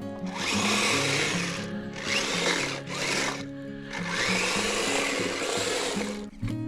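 Electric motor and track drivetrain of a Kyosho Blizzard 2.0 RC snow cat whirring in several throttle bursts with short pauses, over background music.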